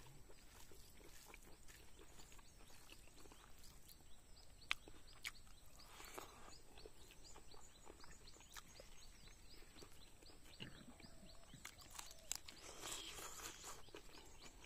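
Quiet close-up eating sounds: chewing and wet mouth clicks while rice is mixed and eaten by hand, with a sharper click about five seconds in and another near the end. A faint, rapid high chirping runs through the middle.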